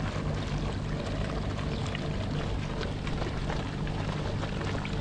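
Light rain pattering in many scattered small drops, over a steady low hum.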